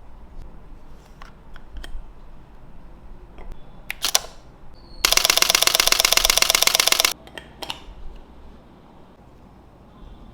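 Sony A7 IV shutter firing a rapid burst of continuous shots for about two seconds, preceded by a sharp double click. Light handling clicks come before and after.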